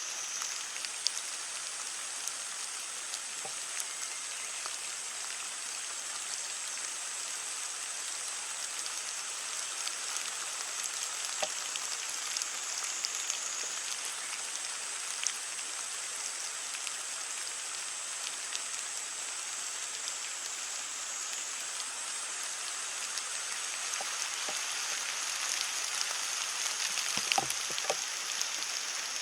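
Heavy rain falling steadily on leaves: an even hiss scattered with the ticks of single drops, a few louder drops hitting near the end.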